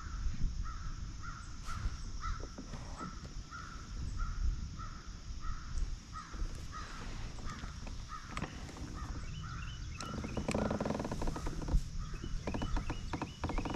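An American crow cawing over and over, about two caws a second, over wind rumbling on the microphone. About ten seconds in there is a brief spell of rustling noise.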